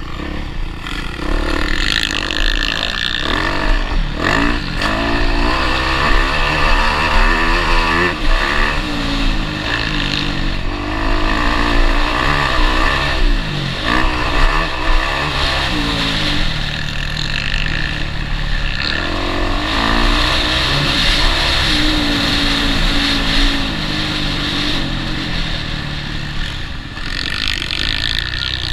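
Motocross bike engine revving up and down over and over as the rider accelerates and shifts along a dirt track, heard close up from onboard, with a few sharp knocks from the bike over bumps.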